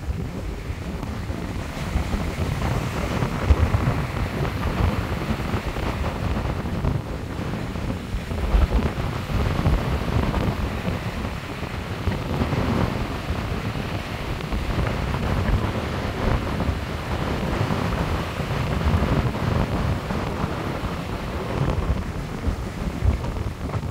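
Rough sea surf breaking and washing up a sandy beach in repeated surges, with wind buffeting the microphone in low rumbling gusts.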